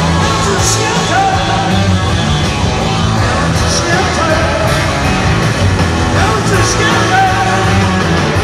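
Live rock band playing at full volume in an arena, electric guitars, bass and drums, with a voice singing over them.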